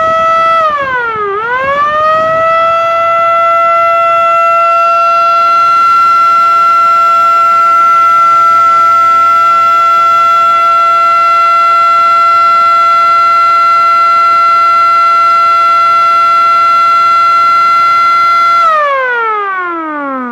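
Civil defense (air-raid) siren winding up, dipping briefly about a second in, then rising again to a steady high tone held for about fifteen seconds. Near the end it winds down, its pitch falling.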